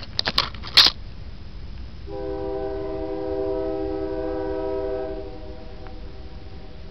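A few sharp clicks in the first second, then a train horn sounding one steady multi-note chord for about three seconds, starting about two seconds in and trailing off.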